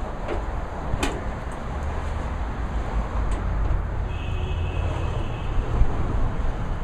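Steady low rumble of background noise, with one sharp click about a second in and a few fainter ticks.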